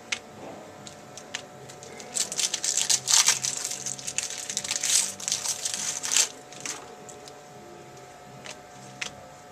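Trading-card pack wrapper being crinkled and torn open: a dense run of crackling from about two seconds in until about six seconds. A few scattered rustles and clicks follow as the cards are handled.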